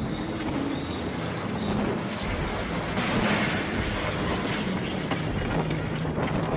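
Strong storm wind blowing, a dense steady rushing noise, louder from about three seconds in.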